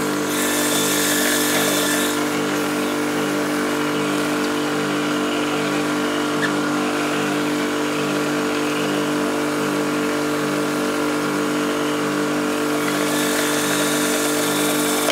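Ruris Pro Power Jet 1900 pressure washer running steadily, its induction motor and pump giving a constant hum under the hiss of water spraying from the rotary brush attachment. The spray hiss is louder in the first couple of seconds and near the end.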